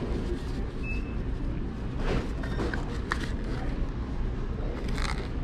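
Paper sandwich wrapper and cardboard potato container being folded and crumpled by hand: a few short crinkles and rustles about two, three and five seconds in, over a steady low background rumble.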